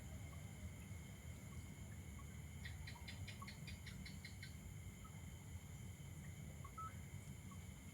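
A quick run of about ten chirps, about five a second, from a small animal, over a faint steady low rumble.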